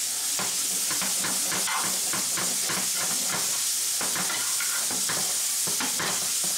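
Sliced green peppers and onions sizzling in a frying pan, with metal tongs knocking and scraping against the pan as the vegetables are tossed.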